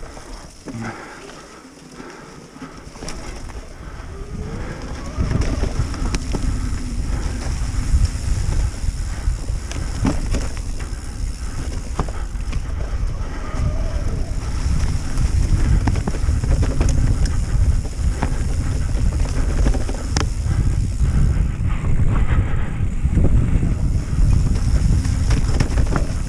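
Wind buffeting the microphone and tyre rumble from a mountain bike riding a trail, building up a few seconds in as speed picks up, with scattered sharp clicks and knocks from the bike rattling over rough ground.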